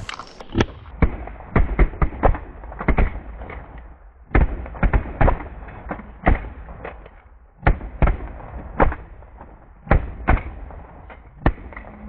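A volley of shotgun fire from several goose hunters shooting at once: about two dozen sharp shots at uneven spacing, some overlapping, thickest in the first three seconds and thinning out toward the end.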